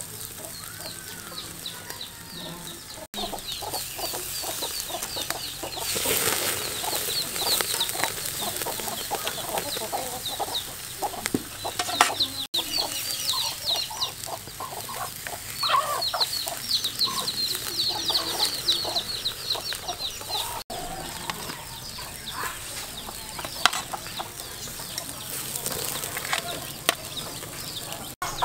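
Chickens clucking, with runs of quick high chirps, over a steady hiss from beef sizzling on a wire grill over charcoal.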